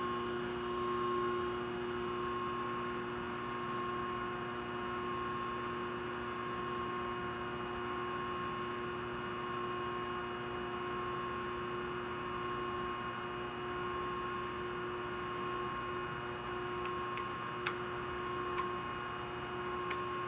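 Powered hydraulic hose crimper switched on and running with a steady hum. There are a couple of faint clicks near the end.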